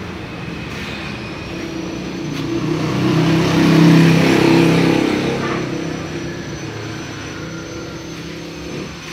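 A motor vehicle engine passing by, growing louder to a peak about four seconds in and then fading away.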